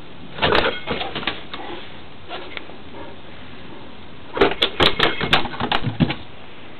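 A large dog's paws and claws clattering on wooden deck boards in two flurries of knocks: a short one about half a second in, and a longer, louder run near the end as it dashes off.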